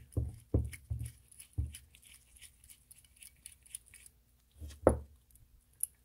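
Small metal clicks and knocks as a Schrader valve core is unscrewed from a brass refrigerant access port with a hand valve core tool. There are a few knocks in the first second and again near the end, with faint ticking in between.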